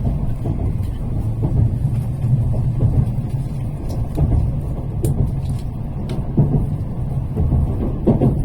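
Tokaido Shinkansen Hikari train running, a steady low rumble with a few faint ticks.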